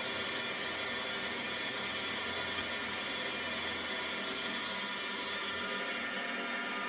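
Drill running steadily during chain drilling, boring a row of holes in metal stock, with an even whirring hum that does not change.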